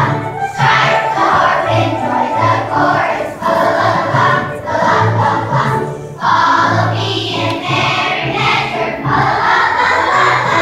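Children's choir singing in phrases over a low instrumental accompaniment, with a short break between phrases about six seconds in.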